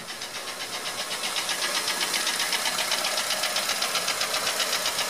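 2004 Honda Element's 2.4 L i-VTEC inline-four idling with a rapid, even ticking that grows louder over the first couple of seconds as the microphone nears the engine bay. The owner first took the tick for valves clicking, but a valve adjustment did not cure it, and he traced it to piston slap in cylinder number 1.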